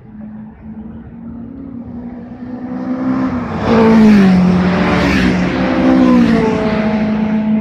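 Two track-day cars passing close by at speed, one after the other. Each engine note swells and then drops in pitch as the car goes past.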